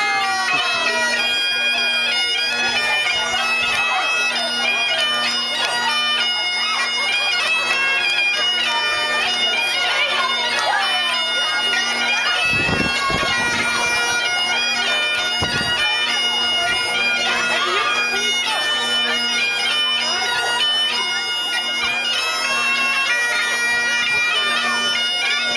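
Bagpipes playing a tune, the melody stepping from note to note over steady, unbroken drones.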